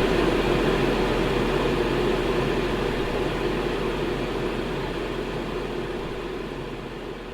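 Steady rushing noise of a running electric fan with a low hum underneath, fading out gradually.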